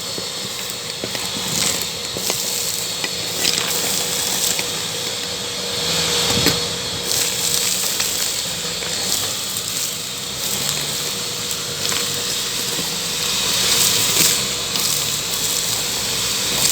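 Makita VC3011L 1000-watt construction vacuum running steadily, a constant motor whine under loud rushing airflow, with sand, clay and small stones clicking and rattling as they are sucked up the hose.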